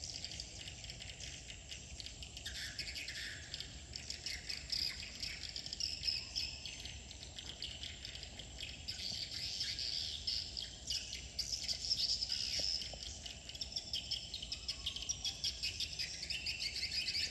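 A flock of swiftlets twittering: a dense, continuous chatter of many short, high chirps overlapping one another.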